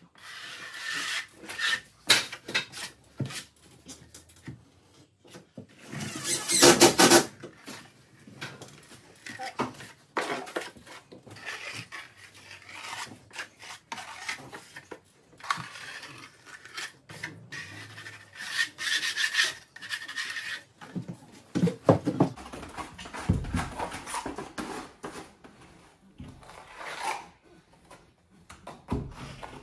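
Irregular scraping and rubbing on timber, broken by knocks, with the loudest scrape about seven seconds in and a heavier knock a little past the middle.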